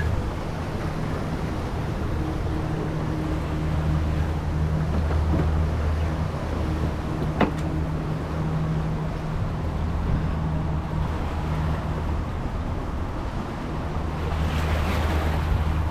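Steady low engine drone over wind and water noise, with a single sharp click about seven and a half seconds in.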